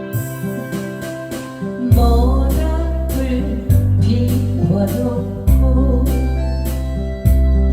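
Korean ballad cover: a soft keyboard-style accompaniment, then about two seconds in a heavy bass comes in and a solo voice starts singing the melody with vibrato.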